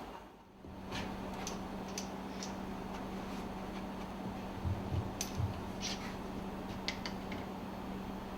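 Scattered light clicks and taps of small parts being handled, over a steady low hum, with a few dull knocks about five seconds in.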